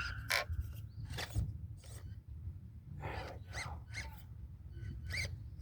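Axial SCX24 micro RC crawler climbing tree bark: its small electric motor and gears whine in short rising bursts as the throttle is worked, among scattered clicks and scrapes of tyres and chassis on the bark.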